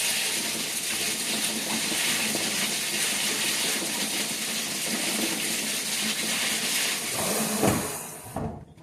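Water tap running hard onto grapes being rinsed in a cup, then shut off suddenly near the end, with a couple of knocks just before.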